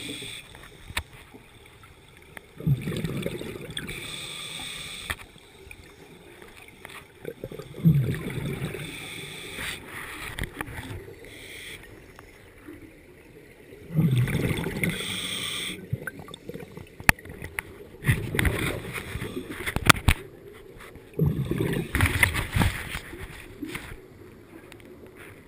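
Scuba diver breathing through a regulator underwater: a hiss on each inhalation and a burst of bubbling from the exhaled air every few seconds, with a few sharp clicks.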